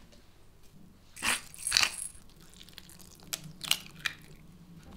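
Wet grated zucchini squeezed by hand against a mesh sieve, giving two crunchy, squishing bursts, then a few short crisp cracks near the end as an egg is cracked open.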